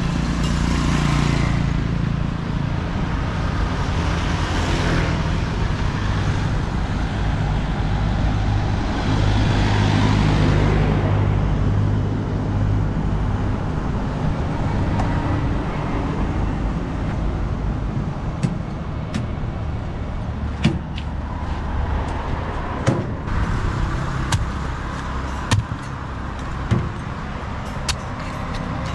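Road traffic: motor vehicles passing close by, with a steady engine rumble and swells as each goes past. From about halfway, a heavy knife chops into palmyra palm fruit in sharp knocks every second or two, over the continuing traffic.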